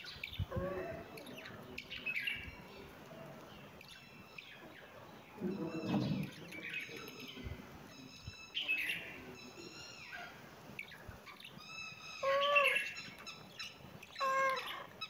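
Small birds chirping in short, repeated calls, with two louder calls near the end.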